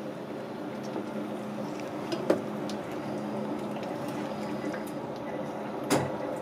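Wet squelching of hands pulling apart a raw cuttlefish and its innards on a plastic cutting board, over a steady low hum. Two sharp knocks stand out, one about two seconds in and another near the end.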